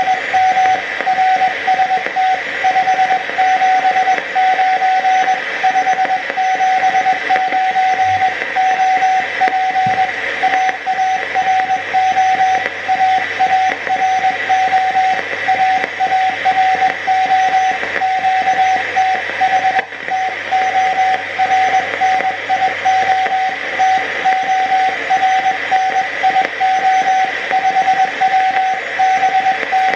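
Incoming Morse code (CW) from a shortwave receiver's speaker: one steady-pitched tone keyed in dots and dashes over constant band hiss. The distant station is sending a 579 signal report, his name and his location.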